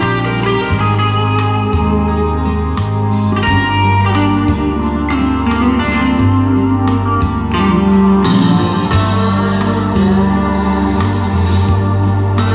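Music played back through Dali Ikon 5 mk2 loudspeakers driven by an Onkyo A-5VL amplifier and recorded in the room: plucked string lines over a steady bass line whose notes change every second or two.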